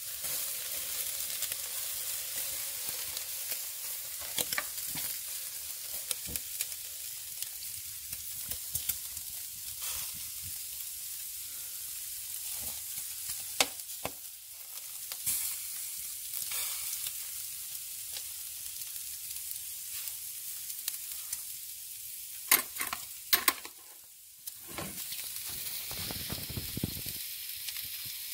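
Meat sizzling over glowing wood embers: a steady hiss with scattered sharp crackles and pops, and a cluster of louder pops about three quarters of the way through.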